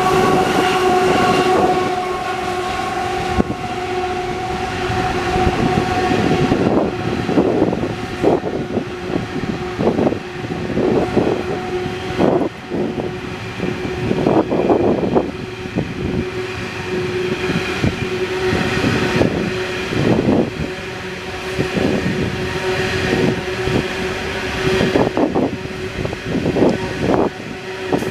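Loaded coal train passing, its yellow diesel locomotive giving way to a long string of coal hopper wagons rolling by. A steady whine runs throughout, with higher tones over it for the first six seconds, and repeated clanks and wheel knocks from about seven seconds in.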